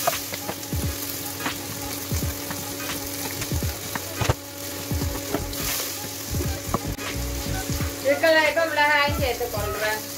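Sliced onions sizzling in hot oil with mustard and fennel seeds in a pot, stirred with a wooden spoon, with scattered pops and knocks. A brief, loud wavering pitched sound comes in near the end.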